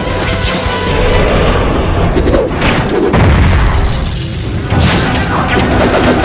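Booming explosion sound effects as rock blows apart into a dust cloud: several heavy blasts, the strongest about three seconds in, over dramatic background music.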